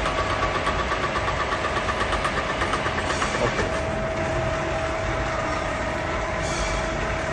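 Huron NU4 milling machine running, its gearing giving a steady whine with a fast rhythmic pulsing that smooths out about halfway through.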